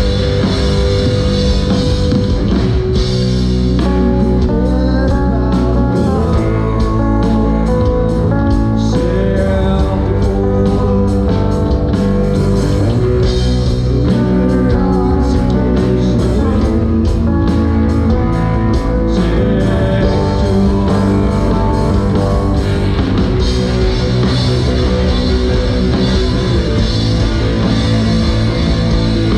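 Rock band playing live: guitar over bass and drum kit, loud and continuous.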